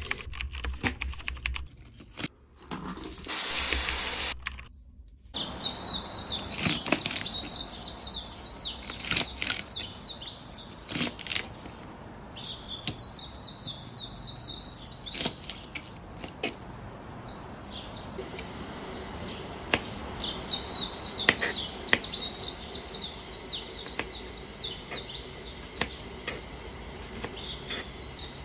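Kitchen knife cutting garlic cloves and onion-flower stalks on a plastic cutting board: irregular sharp taps as the blade comes down on the board. Small birds chirp in quick high runs in the background through most of it.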